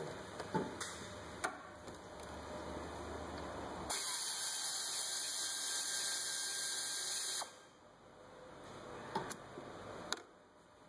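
Pneumatic air ratchet running for about three and a half seconds, a steady hissing whir with a faint whine, as it spins a 10 mm fastener loose, then cutting off sharply. A few light metal clicks of tool handling come before and after it.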